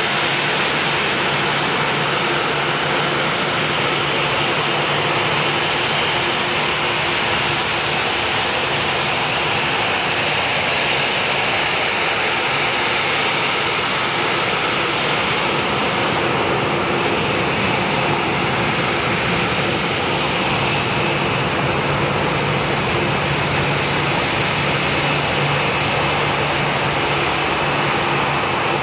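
Boeing 737-800's CFM56-7B turbofan engines running at low taxi thrust, a steady rush of jet noise with faint steady whining tones through it.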